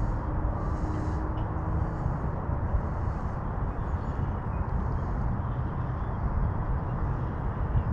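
Steady outdoor rushing noise, heaviest in the low end, with a faint high chirp repeating about once a second.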